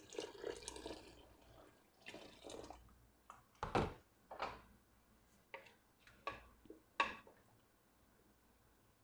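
Water poured in a stream into a metal pot of crushed wheat and onions, stopping after about a second and a half, with a second short pour about two seconds in; then about seven separate drips and splashes, the loudest near the middle, before it falls quiet.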